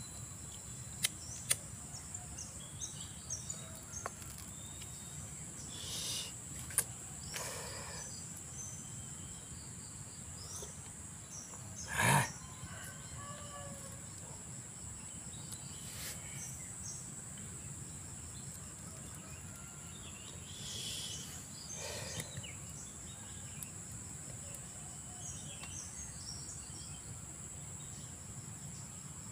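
Steady high-pitched insect drone with scattered bird chirps. A few sharp clicks near the start and one short, louder burst about twelve seconds in.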